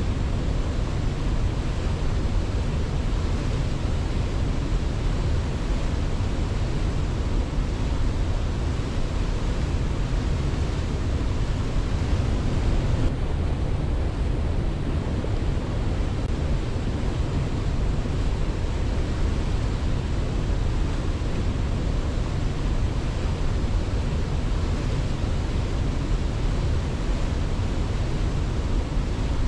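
Waterfall: a steady, unbroken rush of falling water, deepest and strongest in the low end, with no swell or break; the upper hiss dims slightly about 13 seconds in.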